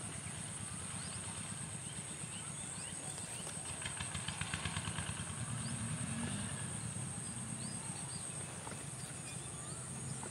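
Outdoor ambience: a steady high-pitched drone and scattered short chirps over a low rumble. About four seconds in, a fast rattling pulse joins for around two seconds.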